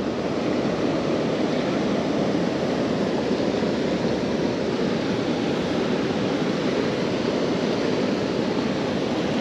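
Steady rushing of flowing water, an even noise that holds at one level without a break.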